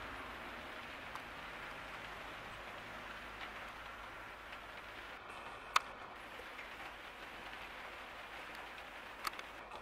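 Steady spring rain falling, an even hiss of rain on surfaces, with a few sharp taps: one loud tap about halfway through and another near the end.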